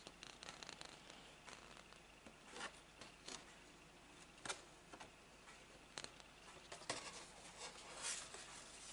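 Faint handling of sheets of craft paper and cardstock: soft rustles with short clicks and scrapes now and then.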